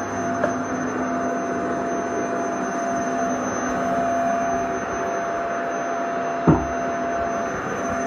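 Vacuum cleaner running steadily, an even motor noise with a constant whine in it. A brief thump sounds about six and a half seconds in.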